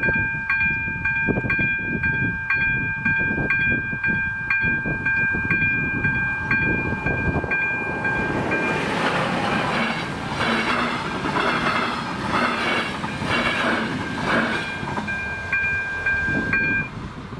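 Level-crossing warning bell ringing as the red lights flash: a steady electronic tone struck about twice a second, over a low rumble and clatter. A louder noisy rush from about halfway through covers the bell, and the bell stops shortly before the end.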